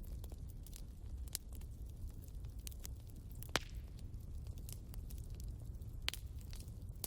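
Wood fire burning: scattered crackles and pops over a low, steady rumble, with the loudest pop about three and a half seconds in.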